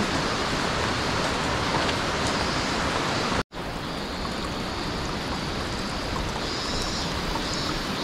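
Steady rush of flowing water, broken off sharply for an instant about three and a half seconds in; after the break it is a small cascade running down a mossy rock face, the water sound that is first taken for the waterfall up ahead.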